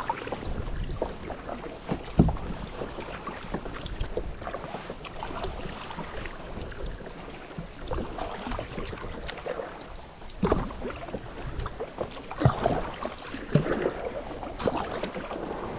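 Kayak paddling: paddle blades dipping and splashing, with water sloshing against a plastic sit-on-top kayak and a few sharp knocks, the loudest about two seconds in. It is heard through a GoPro's built-in mic in its waterproof case.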